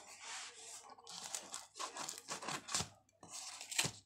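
Cardboard and paper parcel wrapping being torn and crumpled by hand, in a series of irregular rips and crinkles with short pauses between them.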